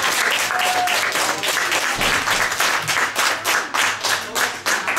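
Audience applauding at the end of a song: dense clapping that thins after a couple of seconds into fewer, more evenly spaced claps.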